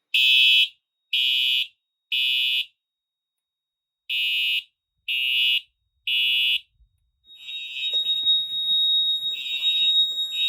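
Simplex TrueAlert fire alarm horns sounding in the temporal-three evacuation code: three short blasts, a pause, three more. About seven seconds in, a steady high tone joins, with a rattling clatter under it, while the horn blasts carry on.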